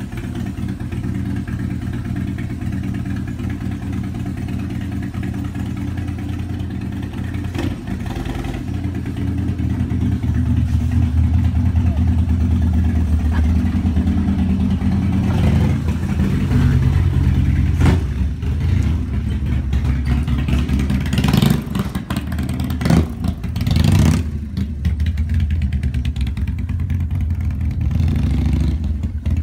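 Motorcycle engine running steadily at low revs, growing louder about eight seconds in, with a few sharp knocks and clatters in the last third.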